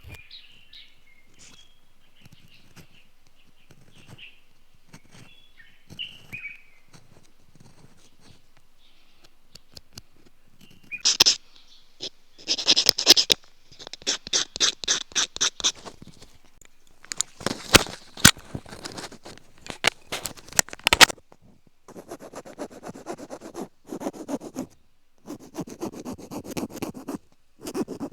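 Faint bird chirps, then from about eleven seconds in, loud close-up scratching and scraping strokes in quick runs, about five a second at times, with sharp clicks in between and denser rubbing near the end.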